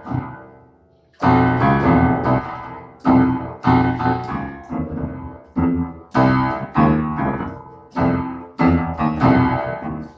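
Piano keyboard being played: after a short pause about a second in, chords struck in a repeating rhythmic pattern, each ringing and fading.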